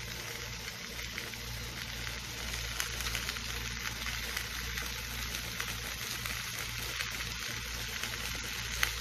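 Chicken, sliced potatoes and onions sizzling steadily in a hot pan, a fine crackling hiss, with one light click near the end.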